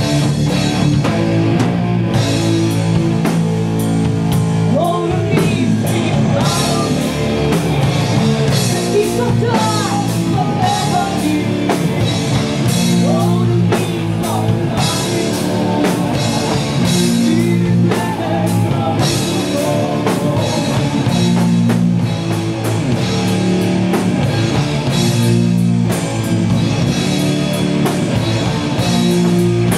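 Doom metal band playing live: slow, heavy distorted guitar chords over bass guitar and drum kit, with singing over it in the middle.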